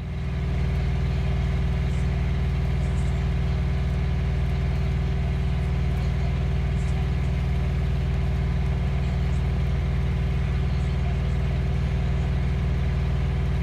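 Semi-truck's diesel engine idling steadily, a constant low hum.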